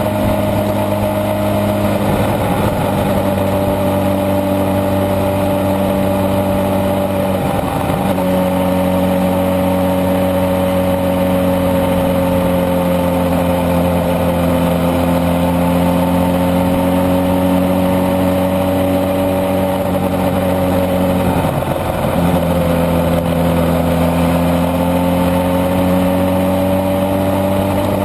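Suzuki GSX-R sport bike's inline-four engine cruising steadily at low revs in sixth gear, heard from on board. Its pitch sags a little about eight seconds in and dips briefly near 22 seconds as the throttle is eased and reopened.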